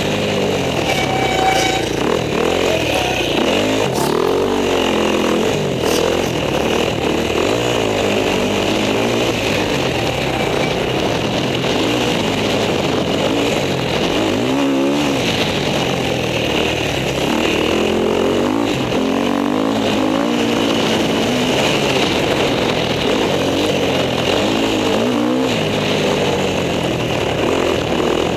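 Husqvarna enduro motorcycle engine under hard riding, its pitch rising and falling over and over as the rider opens and closes the throttle, heard from a helmet-mounted camera.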